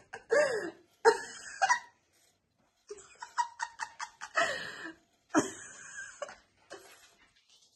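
Giggling laughter in several short bursts, with a pause of about a second near the middle.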